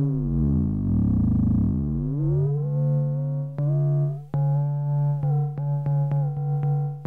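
Behringer 2600 synthesizer with one sine-wave oscillator frequency-modulating another at audio rate. A steady low tone sits under a cluster of FM sidebands that glide down together, meet, then spread and rise as the oscillator's frequency slider is moved. In the second half the pitch shifts in small steps, with short clicks along the way.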